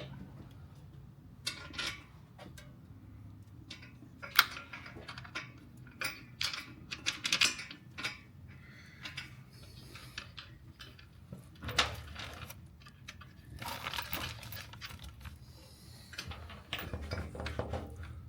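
Metal hardware clinking and clanking at irregular intervals as steel nerf-bar mounting brackets, bolts and nuts are handled and fitted to a truck frame, with a few sharper clanks among softer clicks.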